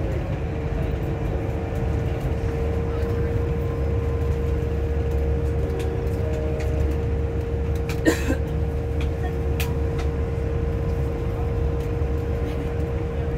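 Class 180 Adelante diesel multiple unit's Cummins engines idling steadily: a low rumble with an unchanging hum, and a single sharp knock about eight seconds in.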